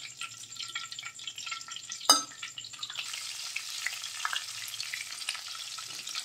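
Fish frying in hot mustard oil in a kadhai, the oil sizzling and crackling, growing denser about three seconds in. About two seconds in, a single sharp metallic clank from the slotted steel spatula striking the metal is the loudest sound.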